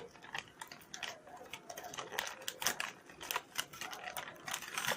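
Snack packet crinkling in the hands as it is opened, a dense run of irregular quick crackles.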